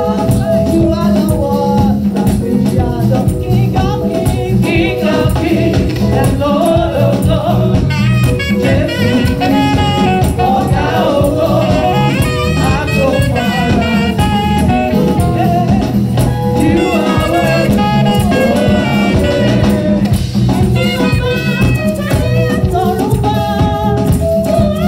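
Live gospel praise-and-worship music: lead singers and a choir singing together over steady instrumental backing with percussion.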